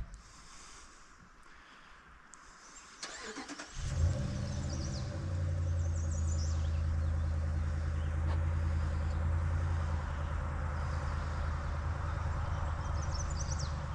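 Pickup truck engine starting about four seconds in, then running steadily.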